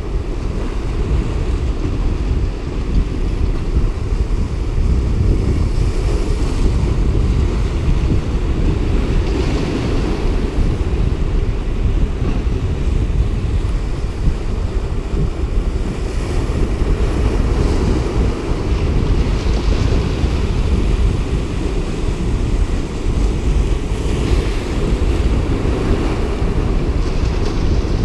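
Wind buffeting the microphone in a steady low rumble, with ocean surf washing and splashing over jetty rocks, the splashes swelling every few seconds.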